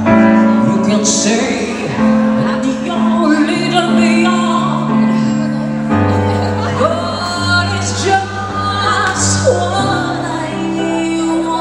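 A woman singing live into a microphone over amplified keyboard accompaniment, with long held chords and bass notes under her voice.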